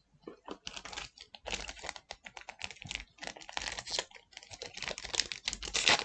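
Digimon trading cards being slid off the stack and flicked against each other by hand, a dense irregular run of small clicks and rustles.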